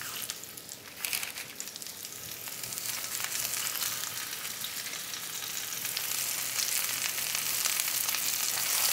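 Hot oil sizzling in a cast iron skillet as oyster mushroom clusters are laid into it by hand, the sizzle building steadily as more pieces go in.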